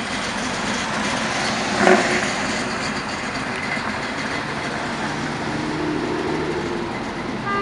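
Passing traffic of cars and a motorcycle driving by: a steady mix of engine and tyre noise, with a short, louder sound about two seconds in and some engine drone near six seconds.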